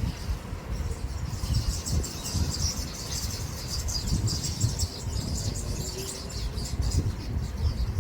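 Small birds chirping and twittering in many quick, high notes over a steady low rumble.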